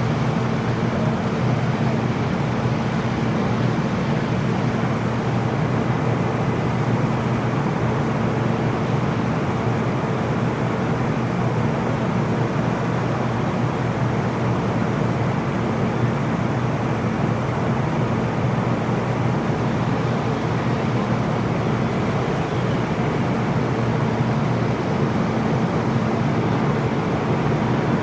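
Diesel engines of fire trucks running steadily at the fire ground, a constant low drone with an even hum and no pauses.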